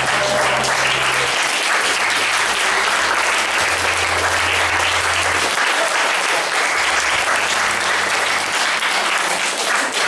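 A small audience applauding steadily, many hands clapping at once.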